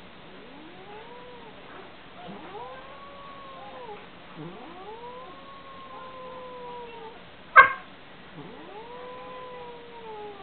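Four long, drawn-out animal calls, each sweeping up in pitch and then held before sagging at the end. A single sharp knock comes about three quarters of the way through and is the loudest sound.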